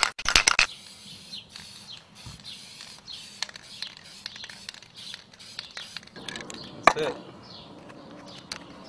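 Aerosol spray-paint can being shaken at the start, its mixing ball rattling fast. This is followed by a faint steady hiss with small handling knocks and a sharp click about seven seconds in.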